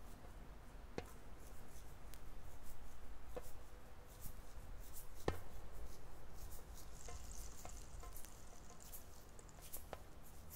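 Faint low hum and hiss with scattered, irregular sharp clicks and pops, the loudest about five seconds in.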